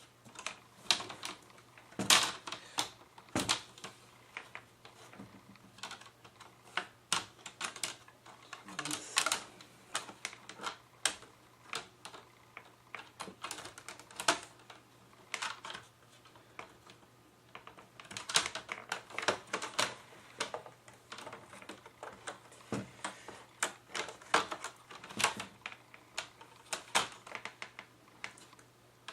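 Plastic screen bezel of an HP 2000 laptop being pressed onto the lid: its clips snap in with a long, irregular run of sharp clicks and taps, some in quick clusters.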